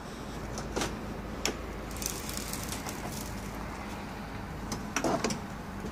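Handling sounds of a wooden kennel's hinged, felt-covered roof being lifted open: a few short wooden knocks and clicks, a couple early on and a small cluster near the end, over a steady low hum.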